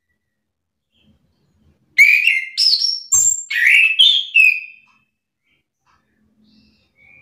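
Chestnut-capped thrush (anis kembang) singing: about two seconds in, a loud phrase of clear whistled notes that jump up and down in pitch, with a few sharp clicks, lasting under three seconds.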